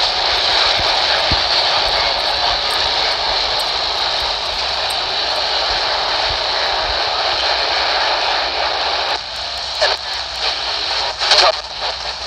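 Steady hiss of static from a Uniden PRO401HH handheld CB radio's speaker, received with the squelch open while the radio is switched through channels. About nine seconds in, the hiss dips and breaks up into crackles and short bursts.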